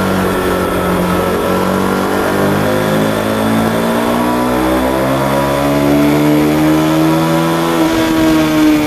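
Aprilia RSV 1000 R's 60-degree V-twin heard from onboard under hard riding, with wind rush. It holds steady revs through a corner, then climbs in pitch under acceleration from about halfway, and dips near the end as it changes up a gear.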